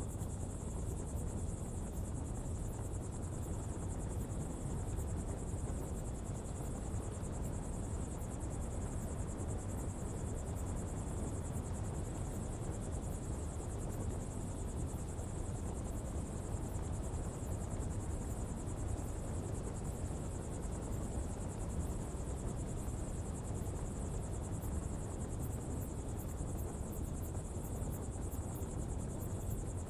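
Coal-fuelled pottery fire burning with a steady low rumble and an even rushing noise, under a constant high hiss.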